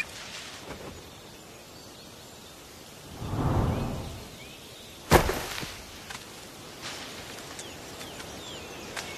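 A bald eagle's wings whoosh, swelling and fading about three seconds in, followed by a sharp thump, the loudest sound, a little over five seconds in. Behind it, faint outdoor ambience with a few small bird chirps.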